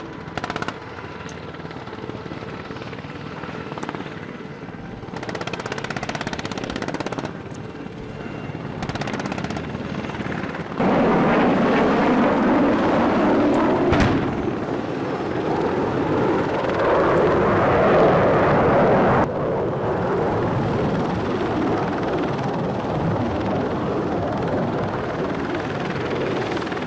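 Military helicopters, a UH-60 Black Hawk and an AH-64 Apache, flying low: steady rotor and turbine noise. About halfway through, a louder stretch of rushing noise with one sharp blast from a pyrotechnic wall-of-fire explosion, and the sound changes abruptly at several points.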